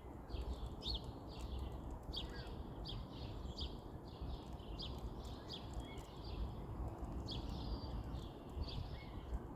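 Birds chirping repeatedly in short high-pitched chirps, about one or two a second, over a low steady background rumble.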